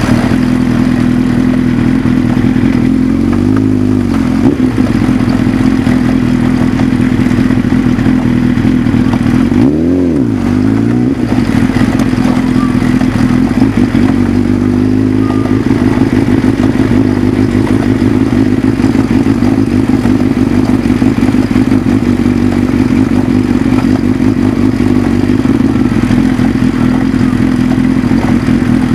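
Motorcycle engine running under way, heard up close from a camera fixed to the bike. The engine note dips and climbs back about four seconds in, and again more deeply about ten seconds in.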